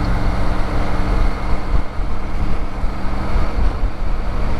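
Motorcycle engine running steadily while riding, under heavy wind and road noise on the rider's microphone.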